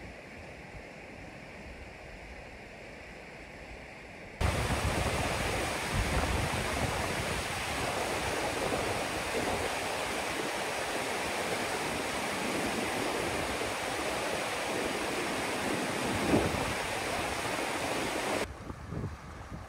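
Fast mountain river rushing over rocks in rapids, a loud, steady rush of white water. For the first four seconds it is fainter and farther off, with wind gusting on the microphone, and it drops back to that quieter sound near the end.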